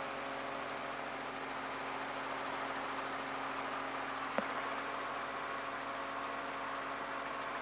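Helicopter cabin noise: a steady drone of the engine and rotors with a few steady tones running through it. A single short click about four and a half seconds in.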